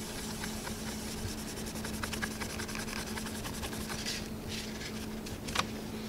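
Paper napkin wiped back and forth over a desktop CPU's metal lid, cleaning off old thermal paste residue with alcohol-based surface cleaner: a soft, scratchy rubbing with many small scrapes.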